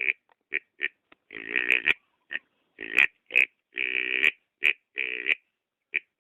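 Wild boar lure call: a run of boar grunts and squeals, some short and clipped, a few held for about half a second, with brief silent gaps between them.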